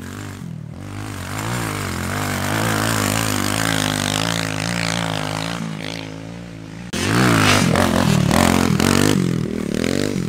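Kawasaki KLX110 pit bike's small single-cylinder four-stroke engine running on the track, its pitch rising and falling as the rider works the throttle through turns. About seven seconds in it suddenly gets louder and closer as the bike comes up near the microphone.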